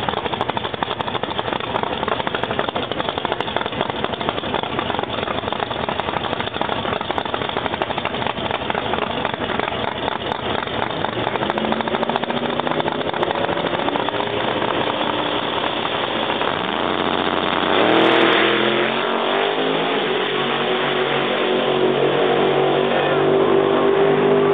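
Drag-racing Chevrolet Camaro's engine running roughly and loudly at the start line. About seventeen seconds in, it launches at full throttle, its pitch climbing in steps as the car pulls away down the strip.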